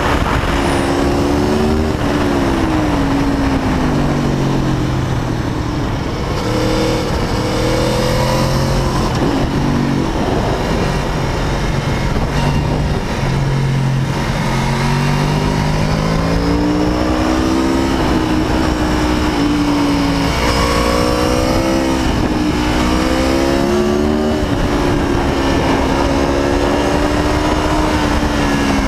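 Aprilia Tuono V4 APRC Factory's V4 engine under way, its pitch repeatedly climbing under acceleration and dropping back, with several quick rising steps in the second half as it pulls through the gears, over steady wind rush.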